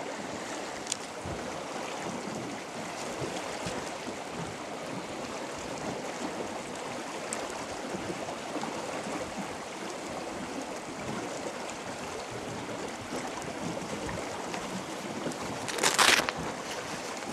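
River current rushing and lapping around a small boat, with wind buffeting the microphone. A short, loud burst of noise comes about a second before the end.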